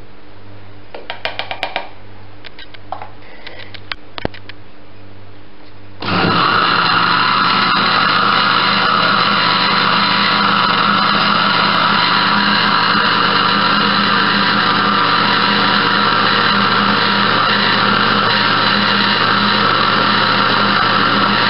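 Electric jug blender switched on about six seconds in and running steadily at full speed, blending a liquid cake batter in its glass jug. Before it starts there are only a low hum and a few light clicks.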